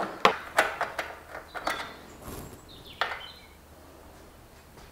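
Small metal mounting brackets and bolts clicking and clinking as they are handled on a solar panel's surface: several sharp clicks in the first two seconds, another about three seconds in, then only faint handling.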